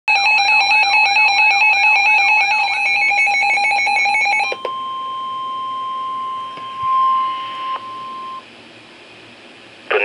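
Weather alert radios sounding their electronic alarm, a loud rapid pulsing of beeps with a repeating warble. About halfway through it stops and a single steady tone near 1 kHz takes over, the NOAA Weather Radio warning alert tone. That tone lasts about four seconds and cuts off.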